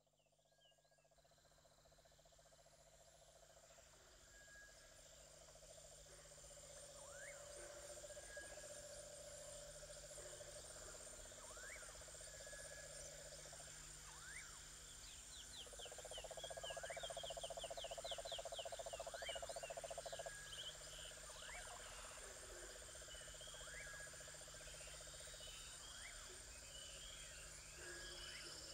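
Faint chorus of calling insects and frogs: steady high insect buzzing, a trilling call that swells louder about halfway through, and short rising chirps repeating every second or two. It fades in over the first few seconds.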